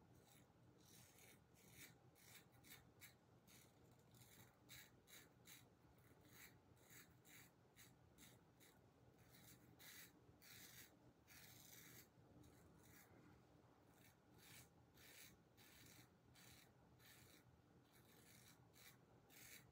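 Kampfe Bros Star safety razor scraping through lather and beard stubble in many short, faint strokes, one or two a second, sometimes in quick runs.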